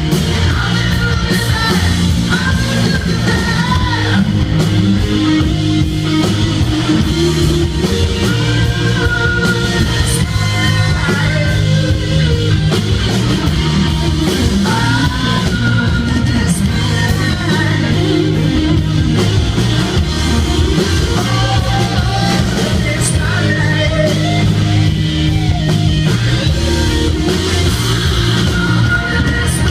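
Live rock band playing loud: electric guitars, bass and drum kit.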